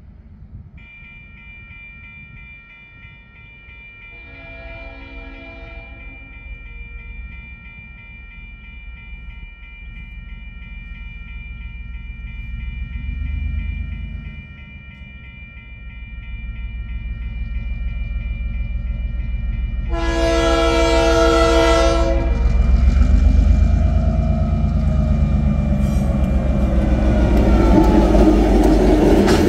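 Level-crossing warning bell ringing steadily as TasRail DQ class diesel locomotive 2001 approaches with a coal train, over the building rumble of the locomotive. The locomotive's horn sounds twice: a fainter blast about four seconds in and a loud two-second blast about twenty seconds in. Near the end the train is passing close, with a squeal from its wheels.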